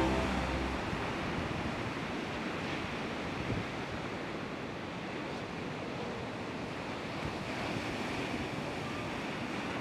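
Sea surf washing on a sandy beach: a steady, even rush of waves.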